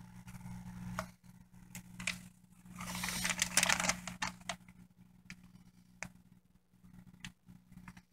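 Thin plastic fish bag crinkling and rustling as a small aquarium net is worked around inside it, with scattered crackles and a louder spell of rustling about three seconds in. A low steady hum runs underneath.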